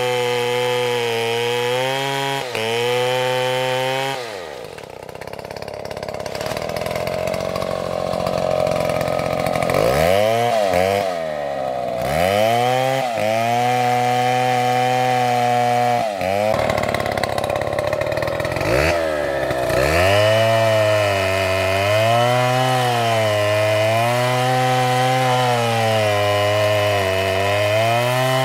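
A STIHL petrol chainsaw cutting into a tree trunk at high revs. About four seconds in the engine drops back, then it is revved up and down in several quick bursts. From about twenty seconds it runs steadily at full throttle, its pitch wavering as the chain bites into the wood.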